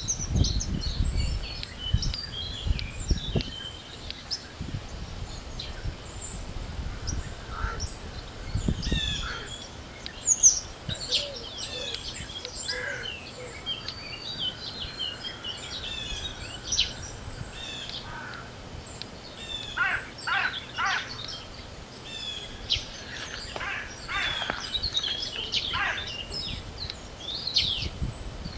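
Spring birdsong: many birds chirping and calling together, with a few sharp downward-sweeping calls about two-thirds of the way through. Wind gusts rumble on the microphone in the first few seconds and again briefly around nine seconds in.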